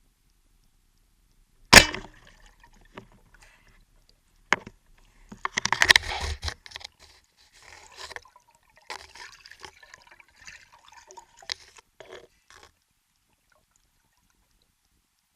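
Water sounds heard underwater: a sharp knock about two seconds in, then scattered knocks and splashing, loudest around six seconds, that stop well before the end.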